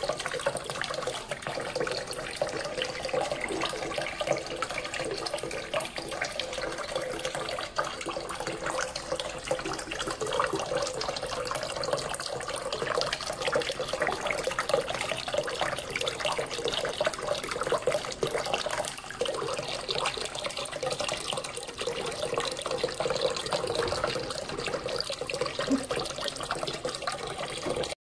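Steady running, splashing water from a small LED-lit submersible fountain pump circulating water in a basin.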